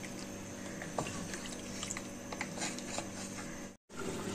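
Wooden spoon stirring a thick meat-and-potato curry in an aluminium pressure cooker: soft wet squelches and small knocks over a steady low hum, broken by a moment of silence near the end.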